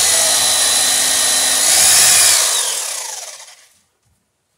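Corded electric drill running under load, boring a hole through a wooden plank into the boat's bottom for a nail. The motor slows and winds down, stopping about three and a half seconds in.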